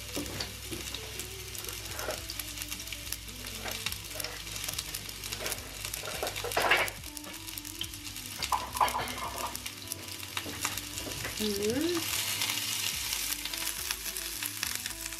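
Sliced onions sizzling and crackling in hot olive oil in a frying pan, at the start of caramelising. A brief louder burst comes about seven seconds in, and near the end tongs stir the onions.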